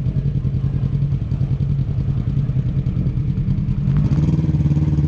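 Side-by-side UTV engine running steadily close by, getting louder about four seconds in as it picks up revs.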